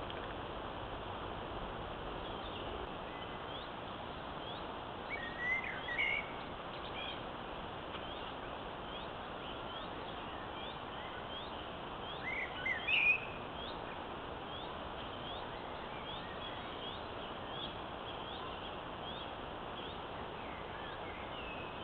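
Steady hiss from a trail camera's microphone, with a bird calling in short high chirps about once a second. Two louder bursts of chirping calls come about six seconds in and again about thirteen seconds in.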